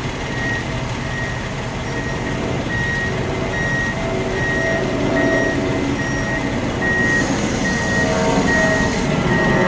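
Heavy-equipment back-up alarm beeping steadily, about one and a half beeps a second, over the low running of a heavy truck or crane engine, with a hiss joining about seven seconds in.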